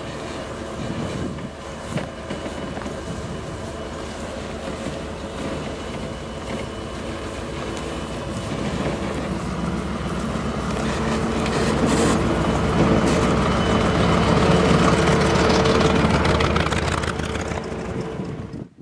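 Soviet BRDM-2 armored car's engine running steadily, getting louder about halfway through and easing off again near the end.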